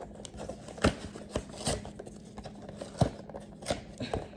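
Small cardboard and plastic toy packaging being handled and opened by hand: a string of sharp clicks and snaps, about six of them, over light rustling.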